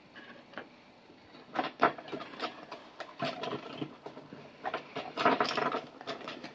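Handling noise: irregular clicks and rustles as the hand-held charger and its leads are moved, starting about a second and a half in.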